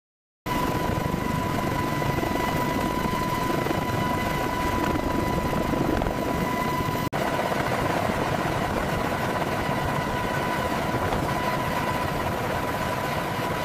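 Military helicopter hovering, with turbine engine and rotor noise and a steady high whine over it. It starts suddenly about half a second in and drops out for an instant about seven seconds in.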